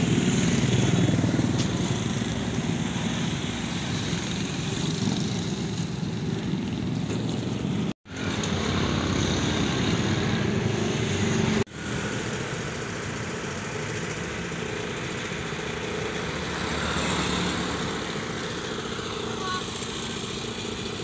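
Steady road traffic and engine noise, including passing motorcycles, broken by two abrupt cuts about eight and twelve seconds in.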